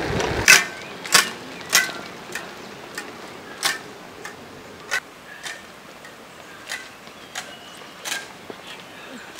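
Steady mechanical ticking, about one and a half ticks a second, each tick sharp with a short ring. The ticks are loudest at first and grow fainter.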